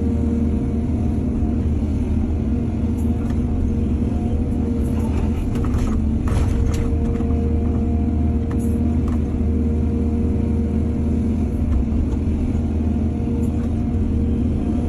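Excavator diesel engine running steadily with a low drone, with a few brief knocks around the middle.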